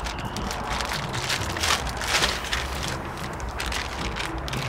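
Clear plastic packaging bag crinkling and rustling in irregular bursts as a torque wrench is pulled out of it, over a steady low rumble.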